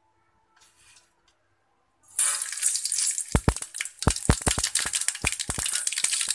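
Mustard seeds and urad dal dropped into hot oil in a stainless steel pan: a sudden loud sizzle about two seconds in, then many sharp crackling pops as the seeds start to splutter, the tempering for lemon rice.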